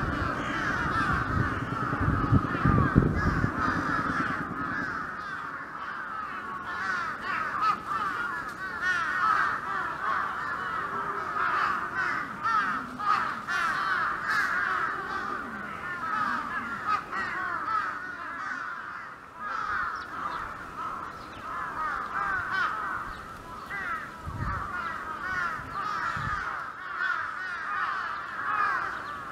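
A flock of birds calling together in a dense, continuous chorus of short chirping calls. A few low thumps sound in the first few seconds and twice more near the end.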